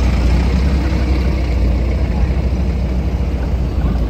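Force Gurkha 4x4's diesel engine running steadily at low revs, a deep even rumble.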